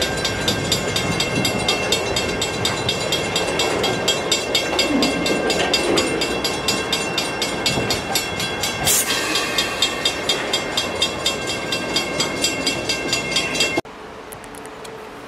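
Grade-crossing bell ringing steadily, about two and a half strokes a second, over the rumble and clatter of a vintage passenger coach rolling slowly across the crossing, with a short hiss about nine seconds in. The sound drops abruptly to a quieter outdoor hum near the end.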